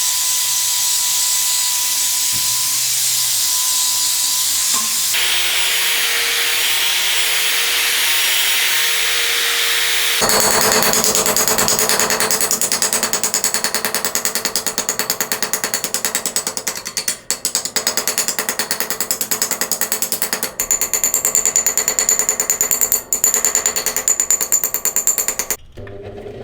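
Workshop power tools on a scooter restoration. First a steady high hiss like compressed air, changing tone about five seconds in. Then, about ten seconds in, a fast-rattling hammering power tool starts and runs until just before the end, with two brief pauses.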